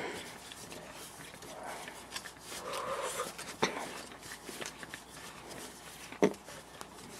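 Hands turning a Blue Snowball USB microphone's plastic ball body while screwing it onto its stand: faint rubbing and scraping with scattered ticks and two sharper clicks, the louder one a little past six seconds in.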